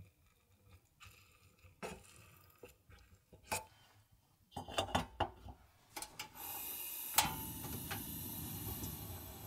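Dishes, pots and utensils clinking and knocking in a few separate strikes, then a steady hissing noise begins about six seconds in, with one sharp knock soon after.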